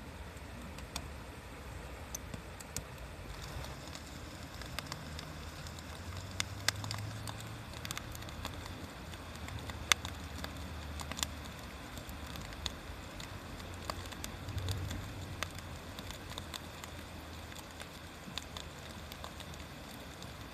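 Wood bonfire crackling, with irregular sharp pops and snaps, the loudest about ten seconds in, over a steady low rumble.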